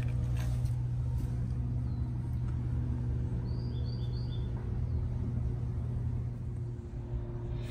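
Steady low outdoor rumble, with a bird chirping three quick times about halfway through.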